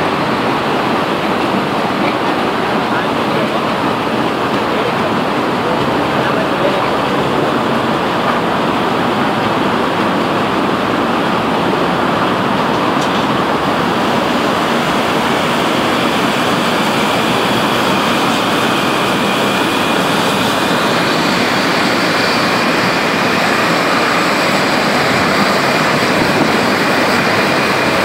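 Steady, even roar of a blast furnace cast house during tapping, with hot metal running from the open taphole down toward the ladle. A faint high whine joins in about two-thirds of the way through.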